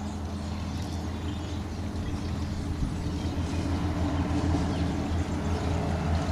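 An engine running steadily, a low even drone with some hiss over it.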